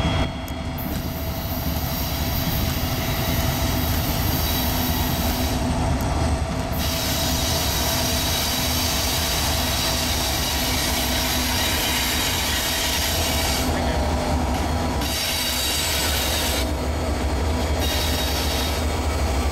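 Freight train's lead diesel-electric locomotives passing close by on a curve: the engines run with a steady low rumble while the steel wheels squeal in the curve and clatter over the rails.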